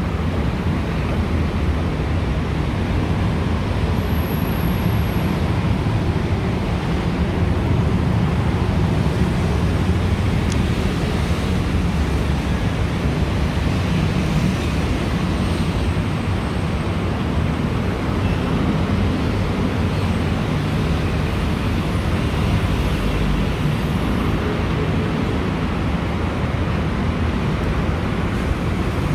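Steady city road traffic noise, a constant low rumble of passing cars and buses with no single vehicle or event standing out.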